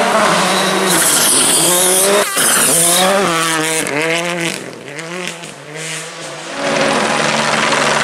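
A turbocharged four-cylinder rally car at full throttle on a gravel stage. Its engine revs rise and fall through quick gear changes as it slides through a corner with gravel and tyre noise, then fades as it passes. About six and a half seconds in, a steady droning takes over.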